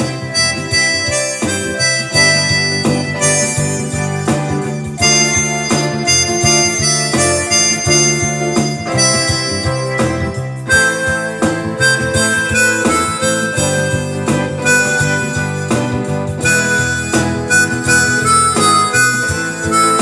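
Instrumental background music: a held, reedy melody over chords, with the notes changing in a steady rhythm.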